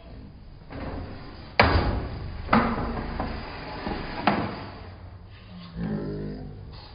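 Three sharp knocks. Two come about a second apart and a third follows almost two seconds later; the first is the loudest.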